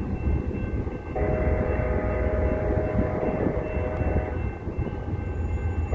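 Diesel freight locomotive's air horn sounding one long blast of several notes at once, from about a second in to just past four seconds, with the next blast starting right at the end: the warning pattern as the train nears the crossing. A steady low rumble of the approaching train runs underneath.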